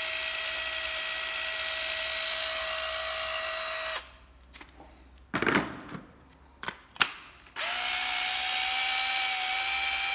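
Hitachi 12V cordless impact wrench running free with no load, a steady motor whine; it stops about four seconds in. A few sharp plastic clicks and knocks follow, the loudest sounds here, as a battery pack is handled, and then the wrench runs again, its whine rising slightly as it comes up to speed.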